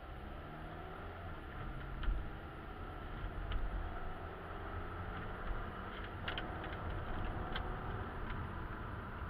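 Engine and road noise of a moving car, heard from a dashcam inside the cabin: a steady low rumble whose engine pitch rises gently over the first few seconds as the car picks up speed. A few faint ticks sound here and there, the clearest about six seconds in.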